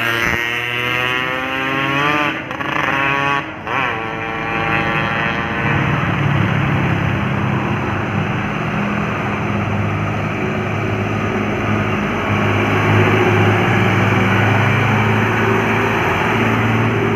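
An ambulance siren passing, its pitch falling as it goes by, fading out about four seconds in. After that a vehicle engine runs low and steady with road noise.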